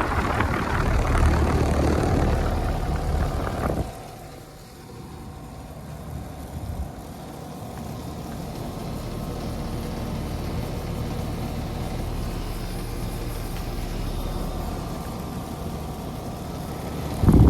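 Carrier Infinity Series heat pump outdoor unit running in heat mode: a loud rushing noise for the first four seconds stops suddenly, leaving a steady hum from the compressor and fan that builds slightly and then holds. A brief loud rush comes near the end.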